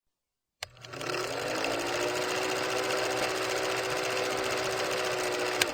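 A small motor running steadily with a fast, even whir. It starts suddenly, rises briefly in pitch and then holds steady, and stops with a click near the end.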